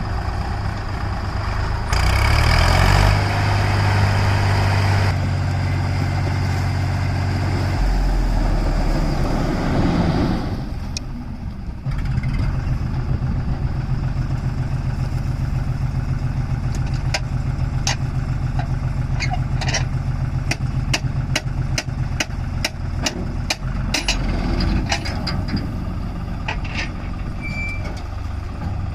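Heavy diesel engine running, revving up about two seconds in, then dropping back and running steadily from about twelve seconds on. Over the second half a run of short sharp clicks and knocks sounds over it.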